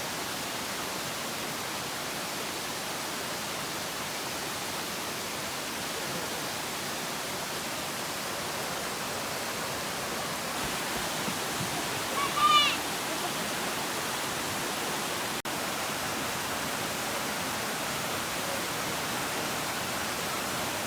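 Steady rush of a waterfall's falling water. About twelve seconds in, a brief high-pitched call sounds over it.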